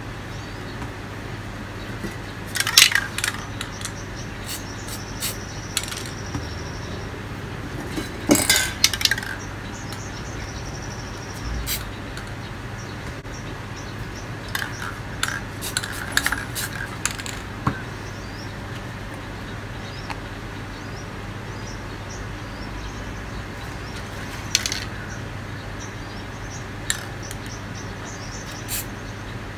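Spray-paint cans and small tools clinking and tapping against the painting board, irregular and sparse, with a few louder clattering bursts, over a steady low hum.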